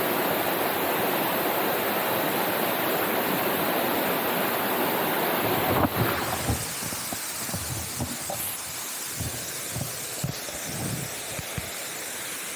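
Steady, loud rushing noise that cuts off suddenly about six seconds in, leaving a quieter background with scattered low thumps.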